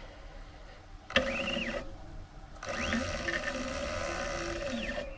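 Stepper motor of a SainSmart 4040 Pro CNC router jogging the Z axis under hand-wheel (MPG) control: a motor whine that starts about a second in, rising and falling in pitch as the wheel is turned, stops briefly, then runs again with more rises and falls. The pendant is working and moving the axis.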